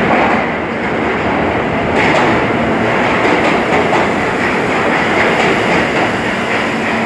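An R160 New York City subway train on the track beside the platform: a loud, steady rumble of wheels on rail, with faint clicks from about two seconds in.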